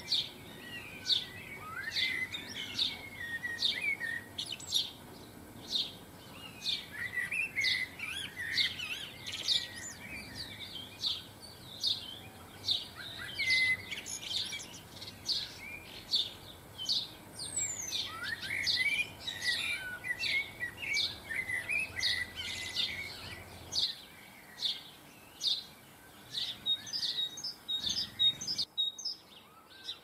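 Small garden songbirds twittering and chirping, a busy run of short high notes and trilled phrases.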